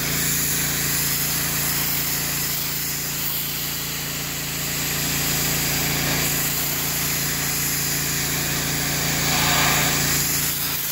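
Pressure washer running steadily, its pump and motor humming under the hiss of the spray jet as it rinses dog urine out of a wet area rug. The spray hiss swells briefly near the end.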